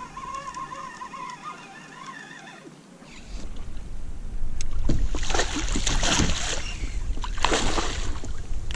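A hooked zander thrashing at the surface beside a landing net, in two loud bouts of splashing about five and seven and a half seconds in. Before that, a wavering high whine fades out about three seconds in.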